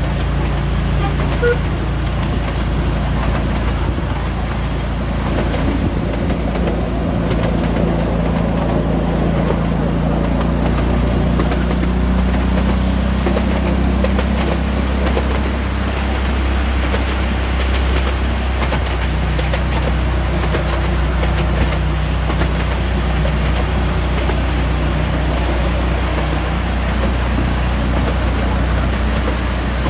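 Hymek-outline miniature railway locomotive running along the track: a steady low drone whose pitch shifts a few times, over a continuous rumble of the train on the rails.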